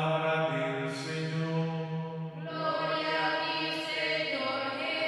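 A man's voice chanting in long, held notes, changing to a new phrase about halfway through: the liturgical chant of a priest at the lectern microphone.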